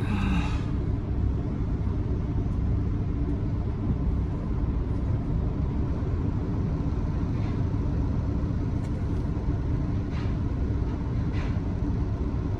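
Truck's diesel engine idling: a steady low rumble with a constant hum, heard from inside the cab, with a few faint clicks.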